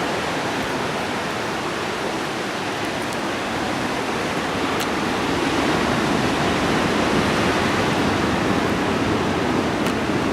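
Steady rushing roar of ocean surf breaking along the shore, growing a little louder about halfway through.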